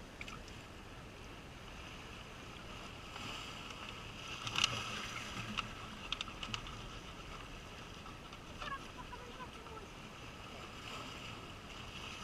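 Calm sea lapping at the shore, with a steady wash of water and light wind; a few small clicks come about four and a half to six and a half seconds in.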